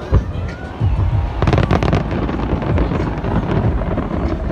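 Fireworks going off in a large aerial display: a steady run of deep booms, with a dense burst of sharp crackles about a second and a half in.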